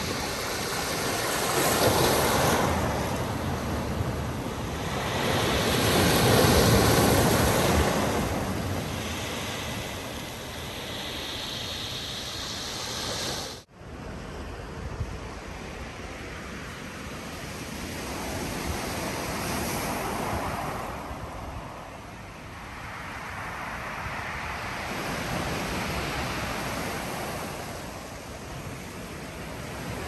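Black Sea surf breaking and washing over a pebble beach, the sound swelling and fading with each wave. The biggest surges come in the first several seconds, and the sound briefly cuts out about halfway through.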